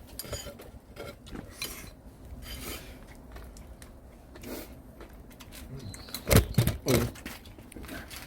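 Utensils clinking and scraping against dishes and pots while eating, with a few louder knocks about six to seven seconds in.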